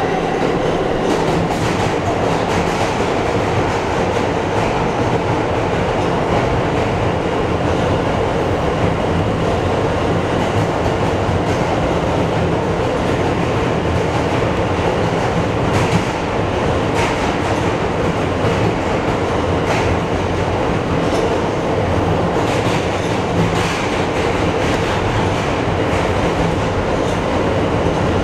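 R160 subway train running through a tunnel, heard from inside the front car: a steady roar of wheels on rail with occasional sharp clicks over the track.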